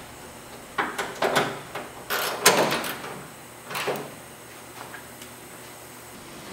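Polished stainless steel body trim being pressed and worked onto a painted car panel edge by hand: a few clusters of knocks and rubbing in the first four seconds, then only a low background.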